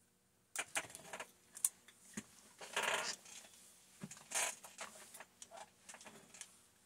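Small metal chainsaw parts and tools being handled, with scattered light clicks and clinks. Two short scraping noises come about three seconds and four and a half seconds in.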